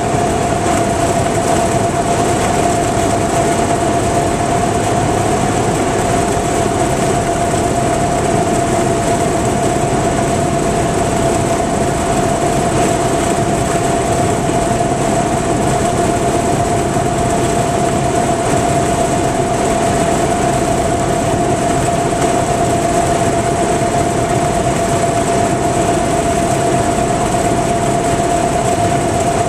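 Cessna 172 Skyhawk's engine and propeller droning steadily, heard inside the cabin, with a steady high-pitched whine running through it and no change in power.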